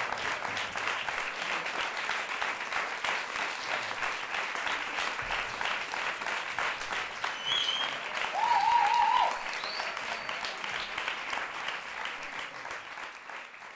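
Audience applauding, a dense spread of many hands clapping. About eight seconds in, a brief high wavering cry from the crowd rises above it as the loudest moment. The applause fades out at the end.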